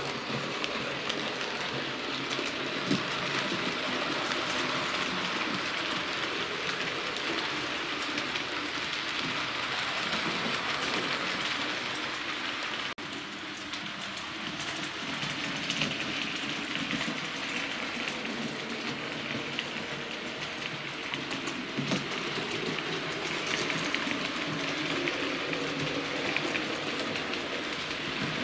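Hornby OO gauge model of the Coronation class locomotive Sir William Stanier running along the track with its carriages: a steady whirring rush of the motor and wheels on the rails. The sound dips briefly about halfway through and then carries on.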